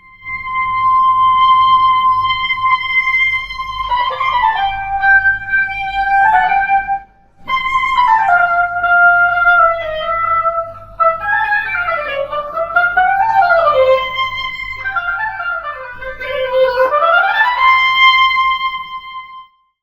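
Oboe playing solo: a long held high note, then a free melodic line with pitch slides up and down, a short break about seven seconds in, and a return to the held note before it stops near the end.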